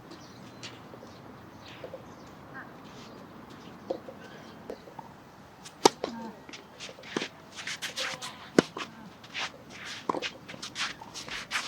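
Tennis rally: a few sharp racket-on-ball strikes a couple of seconds apart, starting about halfway in, with short scuffs of shoes on the court between them.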